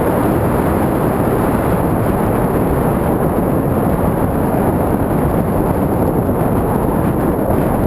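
Steady wind buffeting on the microphone of a camera riding along on a mountain bike, a dense low rushing noise.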